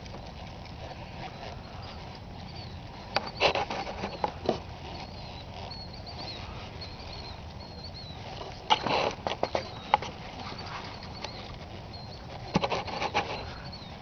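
A ridden horse moving on a dirt arena: three short bursts of knocks and clicks from hooves and tack over a steady low outdoor rumble, with faint bird chirps in the middle.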